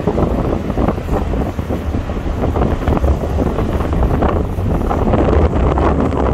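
Wind buffeting the microphone on the open deck of a moving ferry, over a low, steady rumble from the ship.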